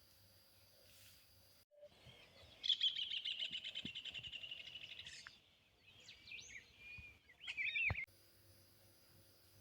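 Songbird singing: a rapid high trill lasting about two and a half seconds, then a few separate chirps and swooping whistles, cutting off abruptly near the end.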